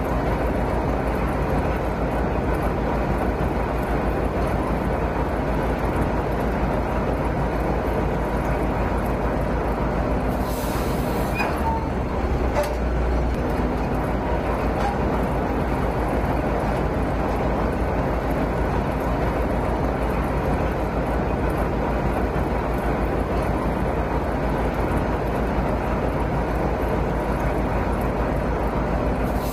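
Heavy machinery running steadily, a continuous low mechanical drone with a fine even pulse underneath, as from the crane barge's engine; a brief hiss about ten seconds in.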